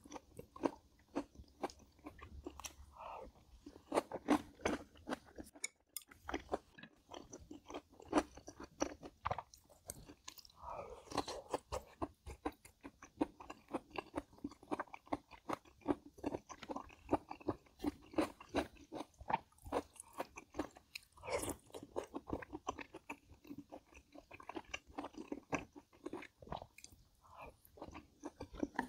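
A person chewing and crunching food in a steady run of crisp crunches, with a brief pause about six seconds in.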